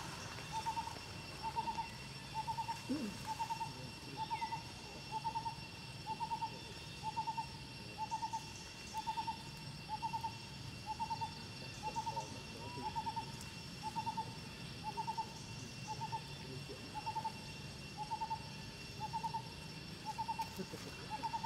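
A short hooting call repeated evenly, a little more than once a second, over a steady high insect drone.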